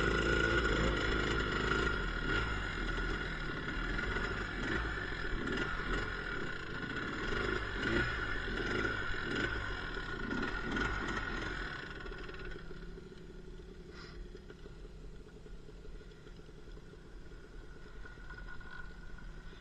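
ATV engines running on a trail ride, the engine note rising and falling with throttle. About twelve seconds in, the sound drops to a quieter, steady running.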